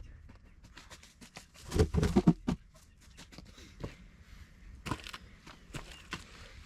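Knocks and crunching from cut firewood being handled during cleanup, with a burst of heavier thuds about two seconds in and a sharper knock near the end.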